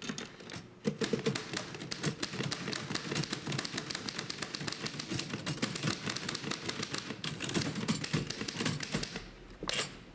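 Manual office typewriters, two at once, typed on in a fast, steady clatter of keystrokes starting about a second in. The typing stops near the end, with one louder knock just before the close.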